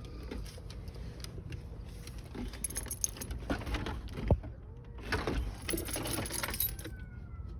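Metal hand tools clinking and rattling as they are rummaged through, in irregular bursts with a few sharp clicks and one knock about four seconds in.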